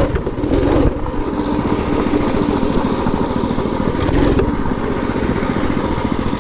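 Minibike's 212cc single-cylinder four-stroke engine running under throttle while being ridden over gravel. A couple of brief louder rushes of noise come about half a second and about four seconds in.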